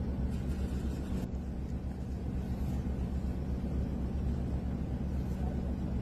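Steady low engine drone with a constant hum, as from a vehicle running.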